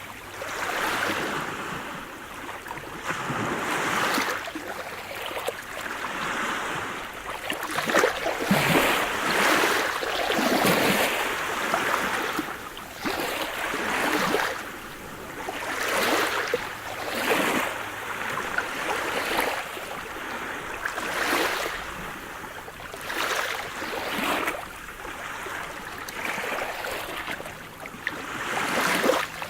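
Sea surf: waves breaking and washing up the shore one after another, a steady rush that swells and falls back every two to three seconds.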